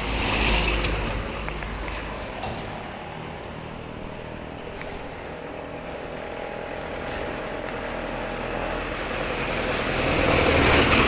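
Road vehicle noise: a steady rushing rumble from a motor vehicle, swelling about half a second in and again near the end.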